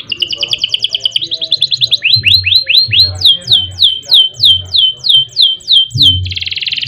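Domestic canary singing loudly: rapid rolling trills, then a quick run of rising notes, then about ten falling whistled notes repeated at roughly three a second, ending in a buzzy rasp. Soft low thumps sound underneath.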